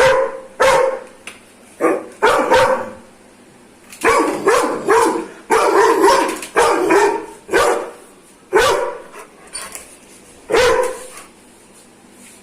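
Doberman barking in loud separate barks: a few at first, then a quick run of barks in the middle, then two single barks spaced a couple of seconds apart.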